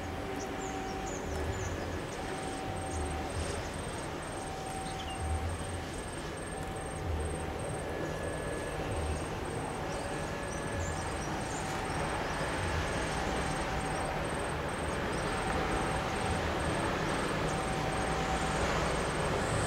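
A distant railway level-crossing warning bell rings steadily at about one stroke a second, over the low rumble of a diesel-hauled tanker train approaching. The rumble grows slowly louder in the second half.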